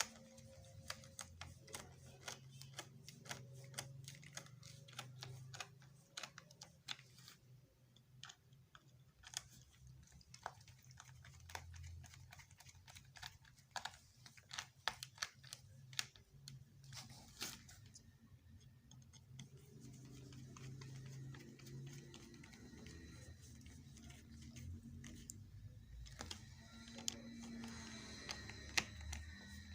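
Faint, irregular light clicks and taps, as of small parts being handled, over a low steady hum.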